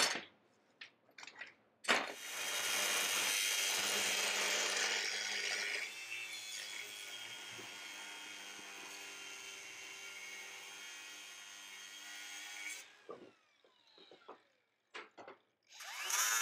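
Electric power tool cutting through a metal fork tube. It starts about two seconds in, is loudest for the first few seconds, then runs more evenly, and is switched off around thirteen seconds in, winding down with a falling whine.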